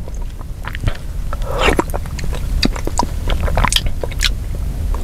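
Mouth sounds of someone tasting tomato soup from a plastic spoon: scattered lip smacks and small clicks, with a longer sip about a second and a half in.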